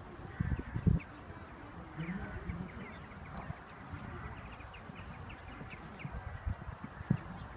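Small birds chirping repeatedly in the background, with a few low thumps in the first second and a short wavering call about two seconds in.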